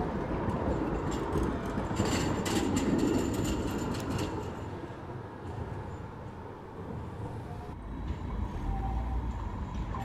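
Electric street tram rolling past on street track, with a steady rumble and a run of clicks from the wheels crossing track joints a couple of seconds in. The rumble dies away as the tram moves off, and a second tram approaches near the end.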